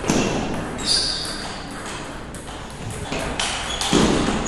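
Celluloid-plastic table tennis ball clicking off the paddles and the table during a serve and rally, a few sharp ticks spaced irregularly. A heavier thump comes about four seconds in.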